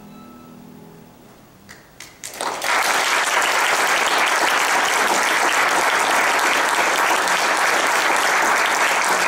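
The last held note of a violin and piano fades out, then a few scattered claps come about two seconds in and the audience breaks into steady applause.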